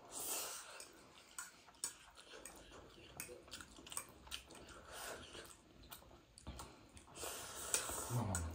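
Quiet slurping and chewing of noodles, with small scattered clicks.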